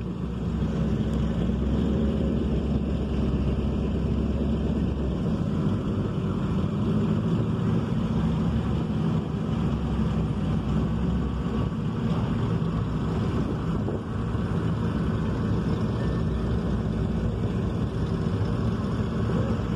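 Hot rod coupe's engine running steadily at a slow idle as the car creeps along; the deepest part of the rumble eases off about five seconds in.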